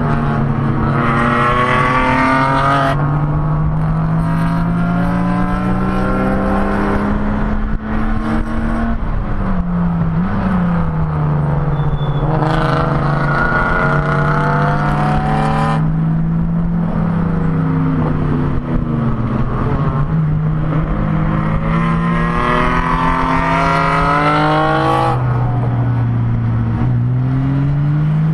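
BMW E30 race car's straight-six engine heard from inside the stripped, caged cabin under hard racing: the engine note climbs for a few seconds at a time and drops sharply about three times, at gear changes or lifts, with steadier stretches between and constant wind and road noise.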